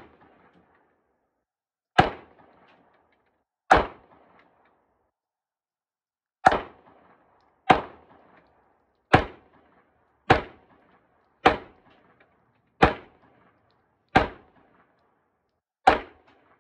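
Gunshots from other shooters on the range: about ten single sharp reports at uneven gaps of one to two and a half seconds, each with a short ringing tail.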